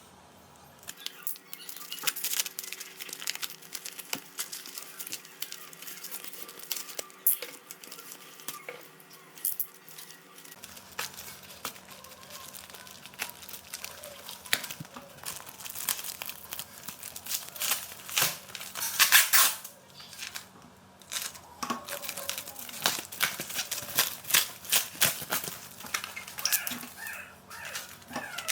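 Packaging being handled and opened: crinkling and rustling with many irregular short clicks and taps, one louder bout of rustling about two-thirds of the way through.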